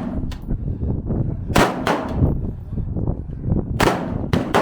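Gunshots on a firing range: four sharp reports, two about a second and a half in and two near the end, with fainter shots between them.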